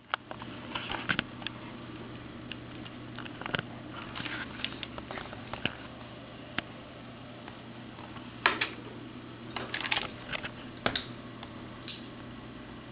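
A steady low hum with a faint hiss, broken by scattered small clicks and short rustles, a few louder ones in the second half.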